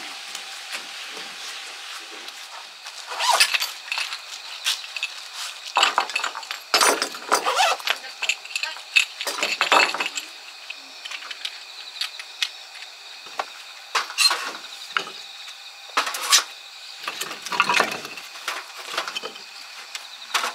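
Split firewood and a folding steel fire stand being handled: irregular clatters, knocks and clinks of wood against wood and against metal.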